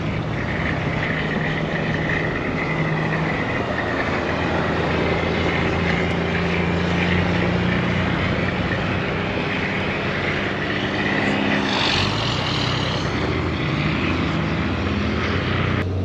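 Pickup truck driving on a snow-covered gravel road: a steady engine hum under tyre and road noise, the engine pitch drifting slightly, with a brief rush of hissing noise about twelve seconds in.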